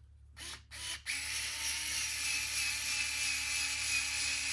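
Small cordless electric screwdriver running steadily for about three and a half seconds while driving a screw into the kit's plastic parts, then stopping abruptly. A couple of light clicks come just before it starts.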